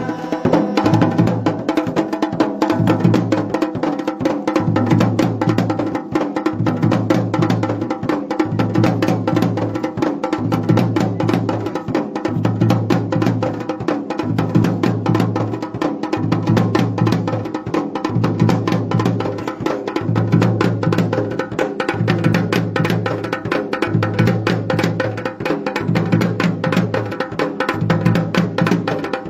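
Dhol and damau drums playing together: a fast, dense run of strokes with a deep beat about once a second.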